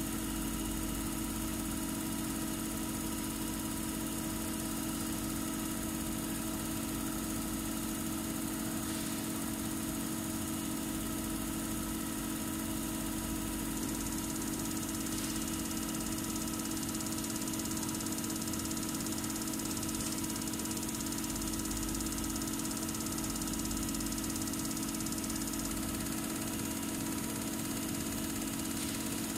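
Common-rail injector test bench running its drive motor and high-pressure pump steadily at 500 rpm with the rail held at 80 MPa, a constant mechanical hum with a few fixed tones.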